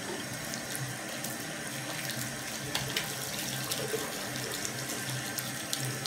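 Bathroom tap running in a steady stream into a ceramic washbasin, with small splashes and ticks now and then as a cat paws at the falling water.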